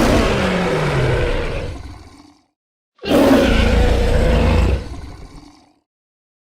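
Designed dinosaur roar sound effects for Carcharodontosaurus. There are two deep roars, each about two and a half seconds long and fading out, with a short silence between them. The first slides down in pitch; the second has a heavy low rumble.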